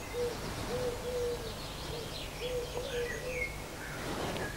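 Birds calling: a run of short, low, even-pitched notes, some in pairs or threes, with fainter high chirps above them.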